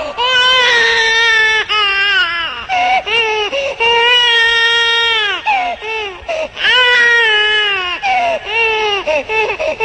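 A newborn baby crying: a run of long wails, one after another, each falling in pitch at its end.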